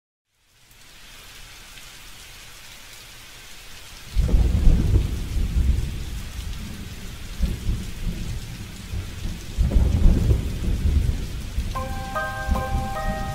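Rain and thunder in a song's intro: a steady rain hiss fades in, a heavy low rumble of thunder breaks about four seconds in and another near ten seconds. Near the end a melody of clear high notes begins over the rain.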